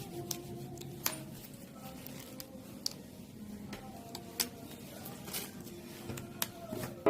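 Small hand tools and materials being handled: scattered light clicks and snips, about a dozen spread irregularly, the sharpest about a second in and about four and a half seconds in, over a faint wavering background tone.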